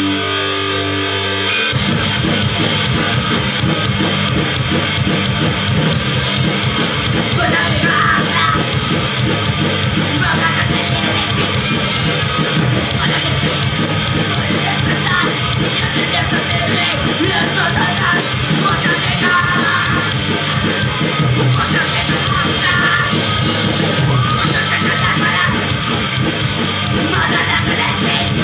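Live punk band playing with distorted electric guitar: drums and bass crash in about two seconds in, and shouted vocals come over the top a few seconds later.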